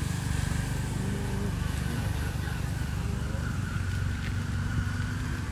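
A motor running steadily nearby, a low, even rumble.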